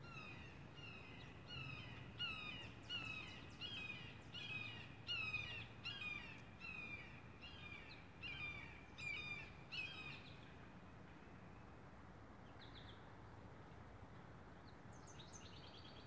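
A neighbour's dog barking in the distance, a steady run of about two barks a second that stops about ten seconds in. A few short high chickadee calls follow near the end.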